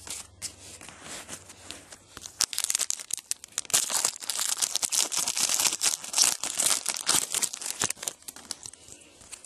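A trading card pack's wrapper being torn open and crinkled, with the cards rustling in hand. It is a dense crackling rustle that grows louder about two and a half seconds in and dies down near the end.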